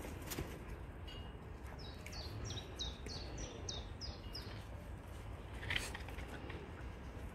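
A songbird calling in the background: a run of about nine quick chirps, each falling in pitch, starting about two seconds in and lasting some three seconds, over a low steady rumble. A short rustling noise comes about six seconds in.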